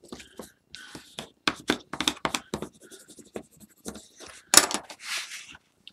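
Cardstock being handled, folded and pressed on a table: a run of rustles, scrapes and small taps of paper, with one sharp tap about four and a half seconds in.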